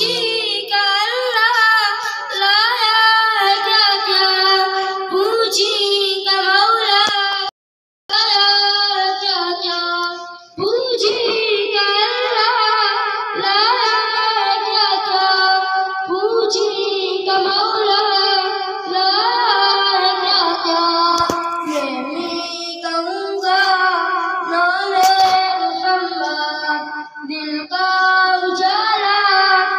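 A boy singing a naat solo, without instruments, his voice amplified through a microphone and loudspeaker. The singing breaks off for a moment about eight seconds in, then carries on.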